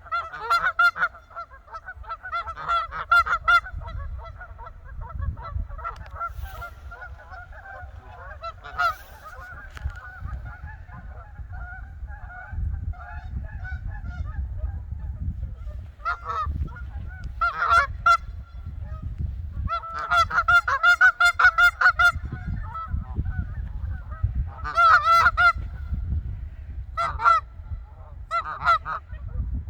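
Geese honking in repeated bouts of quick calls, with gaps between bouts; the longest and loudest run of honks comes about two thirds of the way through.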